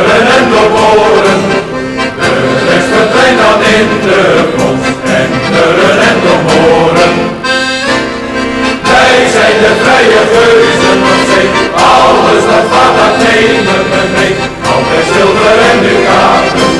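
Background music: an accordion playing a traditional folk tune.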